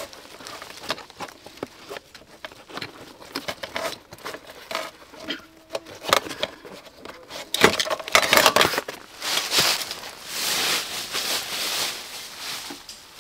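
Rustling and small clicks as a saw is pulled out from under a backpack's nylon compression straps, followed by irregular crunching and rustling in dry leaves.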